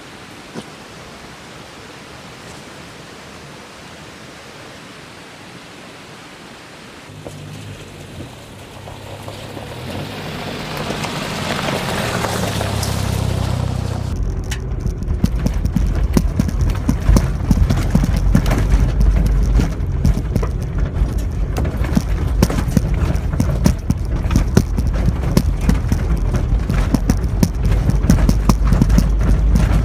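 Suzuki Jimny JA11C's small turbocharged three-cylinder engine drawing closer and louder after a steady hiss, then heard close up as it drives a rough gravel mountain track: a low engine drone under a dense rattling clatter of stones and bumps.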